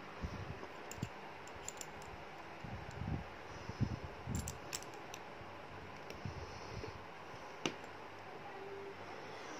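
Light clicks and taps of a rebuildable vape tank's glass tube and metal parts being handled and fitted together, with a few soft knocks and one sharper click about eight seconds in.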